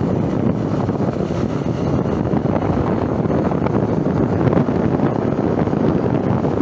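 Steady wind rush over the microphone of a moving motorcycle, mixed with road and engine noise.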